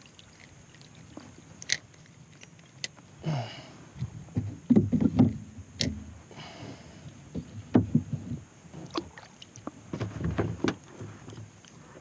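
Irregular knocks, bumps and clicks against a small boat's hull, with a couple of brief rustling splashes, as a freshly netted rainbow trout is handled in the net.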